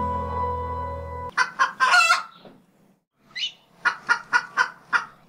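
Music with held chords stops about a second in, then a chicken clucks in a string of short calls, ending in a quick run of about four clucks a second.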